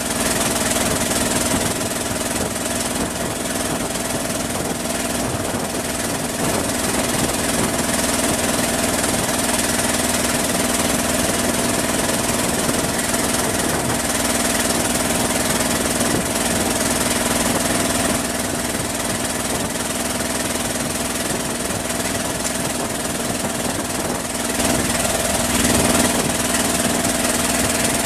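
Engine of a wooden kabang house-boat running steadily under way, a constant hum over the rush of water and wind.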